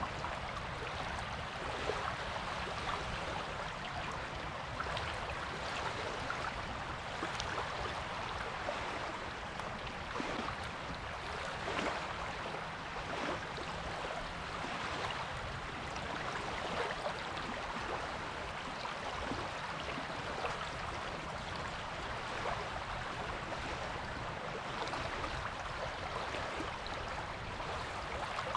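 Waves washing on a beach: a steady rush of water dotted with many small crackles, with a low rumble underneath.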